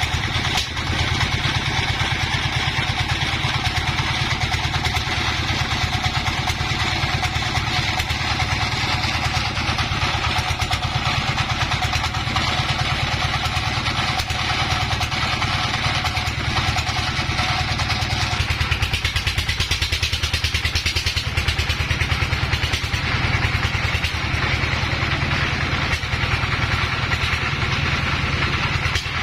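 Sawmill engine running steadily with a fast, even pulsing, its sound changing a little around two-thirds of the way through.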